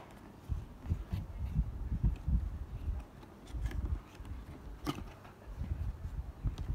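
A cardboard gift box being handled and opened by hand: a run of dull, low thumps and knocks as the lid flaps are worked, with one sharp click about five seconds in.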